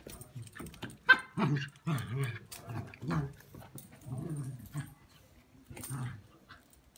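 A Tibetan terrier giving a string of short, low play growls and barks while tugging with a cat, several in quick succession. A single sharp click about a second in is the loudest sound.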